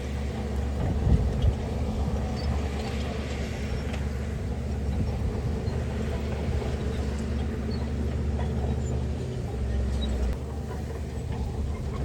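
Heavy diesel engine of a bulldozer or dump truck running steadily, with a few knocks about a second in and a change in the low engine note about ten seconds in.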